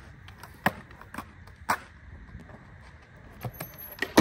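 Skateboard rolling on concrete with a few sharp clacks along the way, then the tail popping and the board landing on a homemade rail near the end, the loudest hit of all.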